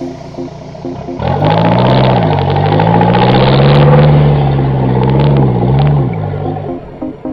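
Off-road 4x4's engine revving hard under load for about five seconds, its pitch rising, dipping and rising again, with clattering knocks over it. Electronic music with a steady beat is heard before the engine comes in and after it dies away.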